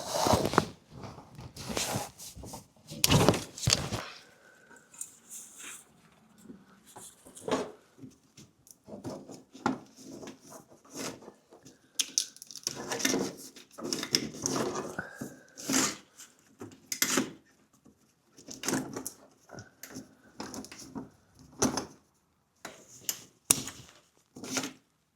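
Irregular knocks, clunks and clatters of parts and tools being handled, louder in a cluster over the first four seconds, then scattered through the rest.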